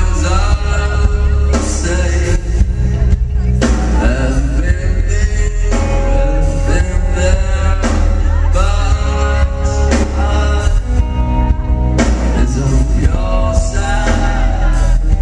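Live rock band playing, with male lead vocals over drums, bass and electric guitar, heard from the audience with a heavy bass.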